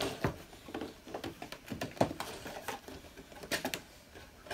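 Hands handling small plastic Lego pieces and packaging: a string of irregular clicks and taps, with a sharper knock about two seconds in.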